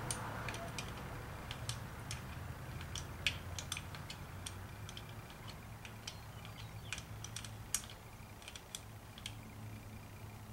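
Light, irregular metal clicks and ticks of a 7/16 wrench working the small oil pressure gauge fitting off an engine, over a steady low hum.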